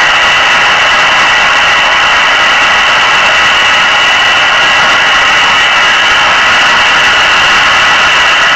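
Steady hiss from a Yaesu FT-736 single-sideband receiver tuned to the AO-7 satellite's 2-metre downlink with no station coming through, the noise filling the voice band and cut off sharply just above 3 kHz.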